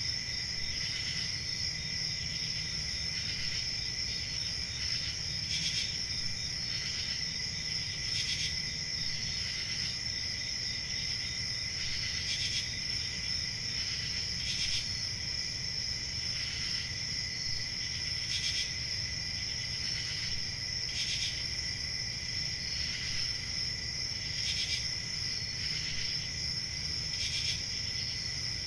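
Crickets trilling steadily, with a brighter chirp cutting in about every two to three seconds, over a low steady rumble.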